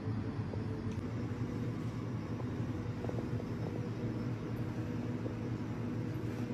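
Steady low mechanical hum with a faint hiss, a running machine, with a few very faint taps about halfway through.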